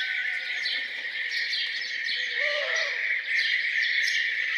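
A morning chorus of songbirds: many quick falling chirps over a dense steady twittering. About two and a half seconds in comes a single lower, rounded hooting call.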